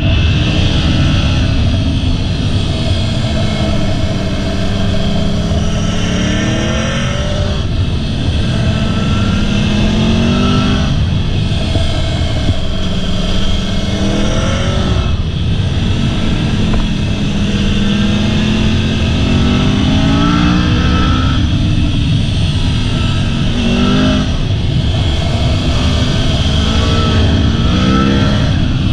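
Sport motorcycle engine heard from onboard, its pitch climbing under throttle and falling back again and again through a run of curves, over steady wind rush on the microphone.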